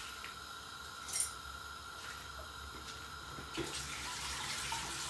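Olive oil and ghee heating in a stainless steel pot, starting to sizzle: a crackling hiss that builds from about three and a half seconds in, after a single click about a second in.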